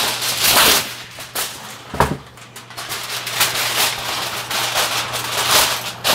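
Aluminum foil rustling as a sheet is pulled from the roll, with a sharp snap about two seconds in, then crinkling repeatedly as it is pressed and crimped over a metal roasting pan.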